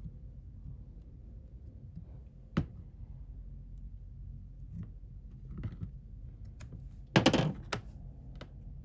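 Small repair tools clicking and tapping against a phone, with one sharp click about two and a half seconds in and a louder, brief clatter a little after seven seconds, over a steady low hum.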